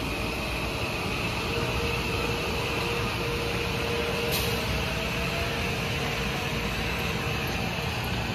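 Kawasaki M8 electric multiple-unit train pulling out under its own power, its wheels rolling on the rails and its electric drive giving off a steady whine. A faint tone rises slightly in pitch, and a brief sharp tick comes about four seconds in.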